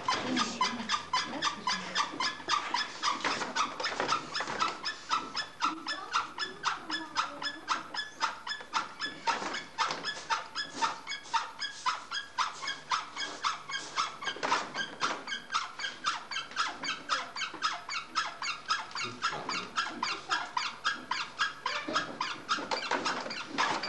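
Potter's wheel turning with a rapid, even squeak, about four squeaks a second.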